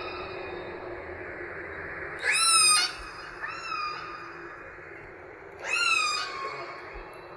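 Killer whale calls: two loud, high calls about three and a half seconds apart, each sweeping up sharply then sliding down in pitch, with a fainter, shorter call between them, over a steady background hiss.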